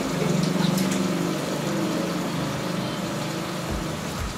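Marinated chicken pieces sizzling in a hot pan under a steady low hum, with a few soft knocks near the end as the pieces start to be stirred.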